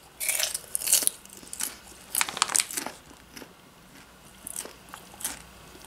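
A person chewing a big mouthful of cheese pizza popcorn with loud crunches, thick in the first three seconds, then a few fainter crunches near the end.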